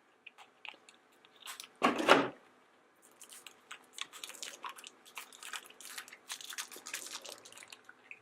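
Crinkling and rustling of a small plastic blind-bag wrapper being handled to get a Num Noms toy out, with a louder rustle about two seconds in and dense crinkling through the second half.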